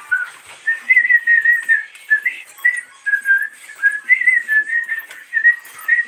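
A tune whistled in quick short notes, the pitch stepping up and down within a narrow range.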